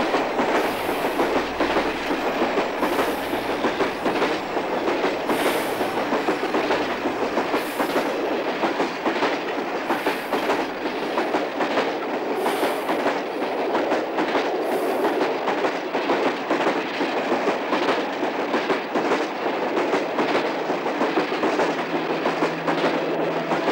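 Loud, continuous mechanical clatter, steady throughout, with a higher hiss recurring about every two seconds until about two-thirds of the way through.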